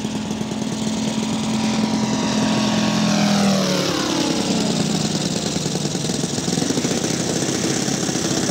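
Quarter-scale RC Hawker Sea Fury's Moki 250cc five-cylinder radial engine running as the model flies past. Its engine note drops in pitch and is loudest about three to four seconds in as it passes, then carries on as a steady drone.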